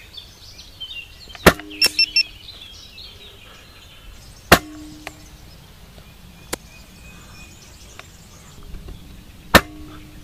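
Three shots from a spring-powered bolt-action airsoft sniper rifle, each a single sharp crack with a short low ring after it: about a second and a half in, at four and a half seconds, and near the end. Just after the first shot come three quick clicks.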